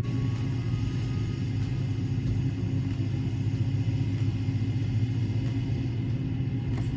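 An engine running steadily at idle: a constant low hum with no change in pitch.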